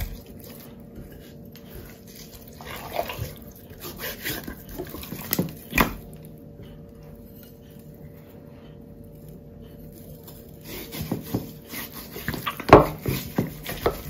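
Hands rubbing salt and pepper into the skin of a raw duck in a glass baking dish: soft wet squelching and rubbing with scattered light knocks against the glass. It goes quieter through the middle and picks up again near the end.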